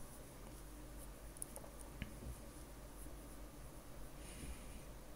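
Faint room tone from the recording microphone: a low steady hum and hiss, with a couple of faint ticks.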